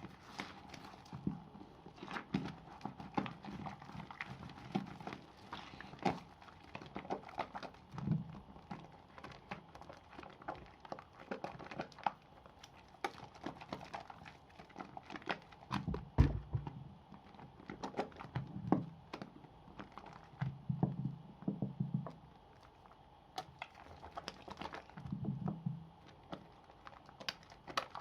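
Pieces of soap being lathered by hand: irregular clicks, taps and squishes, with a louder thump about sixteen seconds in.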